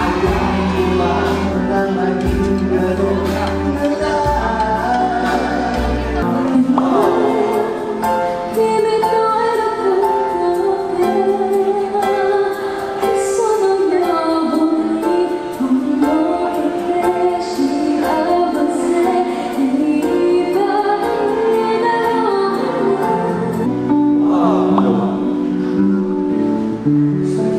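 Live band music with singing into a microphone, changing from song to song. There is a heavy bass line for the first six seconds or so, then a girl's voice carries the melody, and the song changes again near the end.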